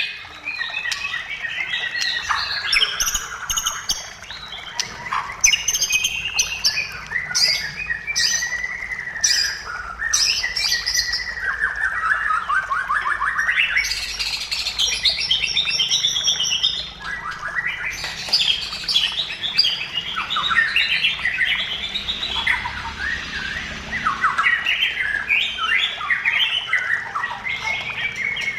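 White-rumped shama singing non-stop, a fast, varied song of whistled glides, trills and sharp rattling notes.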